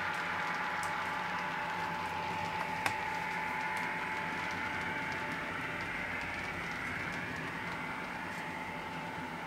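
Märklin ICE model train running, its ESU sound decoder and small speakers giving a steady hiss with a high hum under it, mixed with the model's own rolling noise. The hum fades toward the end, and there is a single click about three seconds in.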